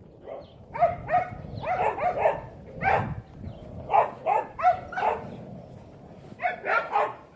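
Dogs barking: short, sharp barks in quick runs of two to four, with a pause of about a second near the five-second mark.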